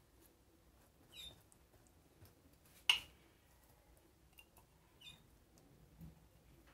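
Mostly quiet, with a few small clicks and squeaks from a silicone pastry brush dipped in a glass jar of honey and dabbed onto baked brioche; one sharper click about three seconds in.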